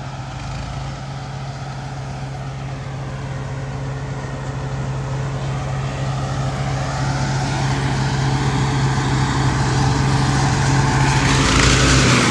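Tractor engine and tractor-drawn forage harvester chopping standing corn for silage: a steady engine drone under a rushing hiss, growing louder as the machines draw near and swelling near the end.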